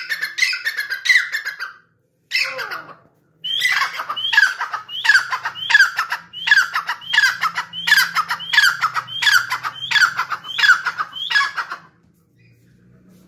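Grey francolin (teetar) calling: a long run of sharp, high notes, each falling in pitch, repeated about twice a second. There is a short break about two seconds in, and the calling stops about twelve seconds in.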